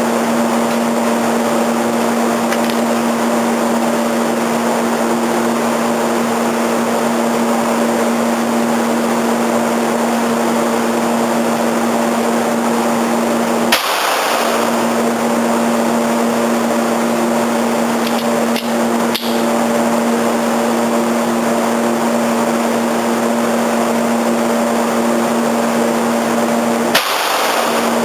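A steady mechanical hum with one constant low tone and a wash of noise, broken by a brief click or knock about 14 seconds in and again near the end.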